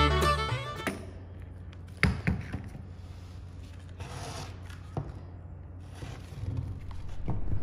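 Faint rubbing and scraping, with a few light knocks, as a fibreglass mould is handled and shifted on a wooden workbench. Background music fades out about a second in and swells back near the end.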